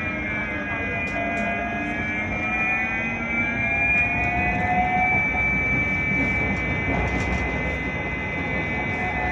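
Interior ride noise of a moving GT6N low-floor tram: a steady rumble with several whining tones that drift slowly up and down in pitch, and a few light clicks.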